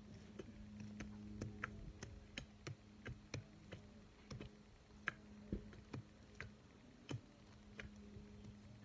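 Hand garden tools working dry soil: irregular sharp clicks and scrapes, two or three a second, over a faint steady hum.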